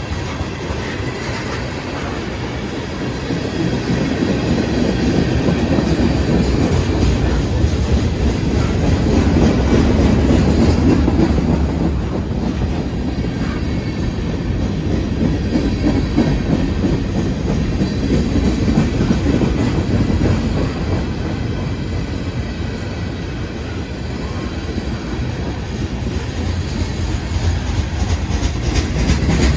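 Union Pacific manifest freight train's cars rolling past fast at close range: a steady rumble of steel wheels on the rails. It grows louder about four seconds in, eases a little after about twelve seconds, and rises again near the end.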